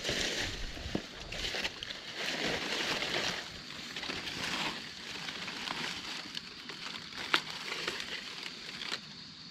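Dry forest leaf litter rustling and crunching in irregular bursts as it is trampled or raked through, with a few sharp snaps of twigs.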